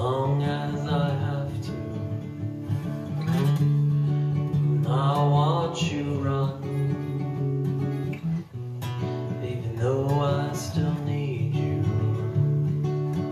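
Acoustic guitar strummed with a man singing over it, several sung phrases between stretches of guitar.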